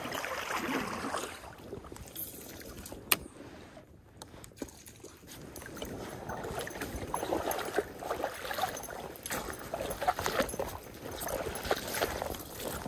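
Water sloshing and steps from wading along the edge of a small stream. The steps are irregular and get busier in the second half, and there is a single sharp click about three seconds in.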